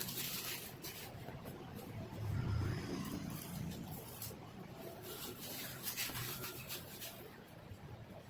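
Faint rubbing and handling noises with scattered small clicks, and a louder low rumble about two and a half seconds in.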